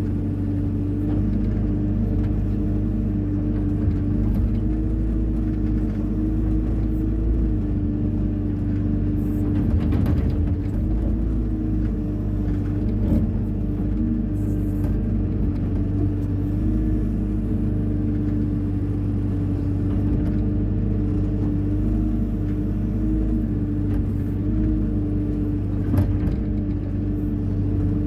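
Diesel engine of a Hyundai 140 wheeled excavator running steadily with a low rumble and a constant hum, with a couple of brief knocks about ten seconds in and near the end.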